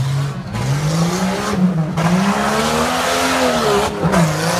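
Tough truck's engine revving hard as it runs the dirt course, its pitch climbing, dipping, then climbing higher again before dropping back and settling to a steady note about four seconds in.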